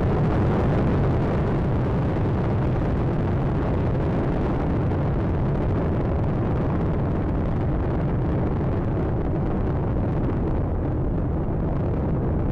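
Space Shuttle Atlantis's rocket engines during ascent, its two solid rocket boosters and three main engines: a loud, steady, deep rumble. The upper hiss thins out over the last few seconds as the shuttle climbs away.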